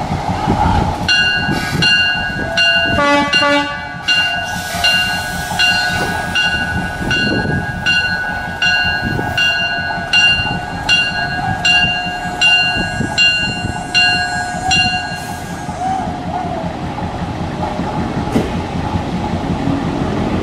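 Diesel switcher locomotive's bell ringing steadily, about one clang every 0.7 seconds, stopping about 15 seconds in, with a short horn toot about three seconds in. The locomotive's engine and the moving train rumble underneath.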